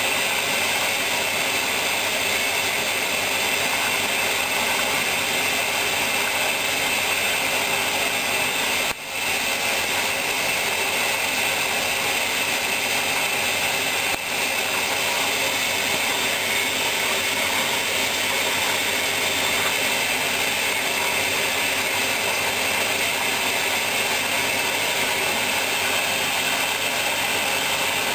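Hoover washing machine running a wool-programme wash: a steady mechanical whir and wash noise, with two brief dips about nine and fourteen seconds in.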